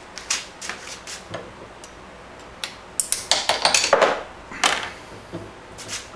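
Steel parts clinking and rattling against each other at a bench-top arbor press: a few separate clinks, then a quick flurry of metallic clatter about three to four and a half seconds in.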